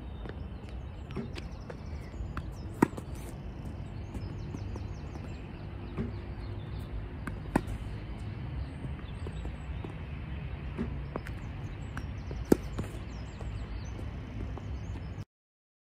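Tennis racket striking balls fed by a ball machine: three sharp hits about five seconds apart, each with a fainter knock a second and a half before it. Birds chirp over a steady low outdoor rumble, and the sound cuts off suddenly near the end.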